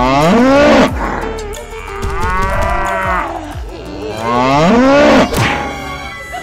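A cow mooing three times, each long call rising and then falling in pitch.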